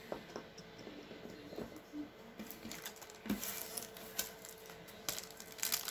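Trading cards being handled: soft slides, light taps and plastic rustles of cards and sleeves. Near the end a crinkly rustle starts, as of a foil card pack being handled.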